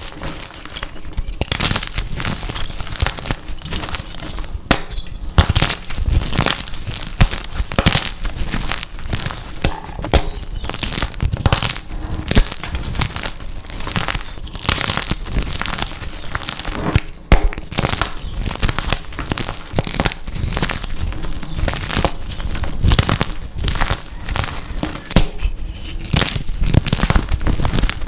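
Blocks of dyed gym chalk being crushed and crumbled by hand, a dense run of crisp crunches and crackles with no pause.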